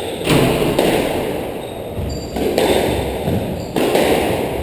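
Squash rally: a hard rubber squash ball struck by rackets and smacking off the court walls, several sharp hits a second or so apart, each ringing in the enclosed court.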